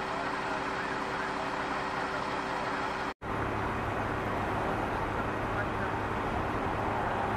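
A garbage truck's diesel engine idling steadily under street traffic noise, with a split-second total dropout of the sound about three seconds in.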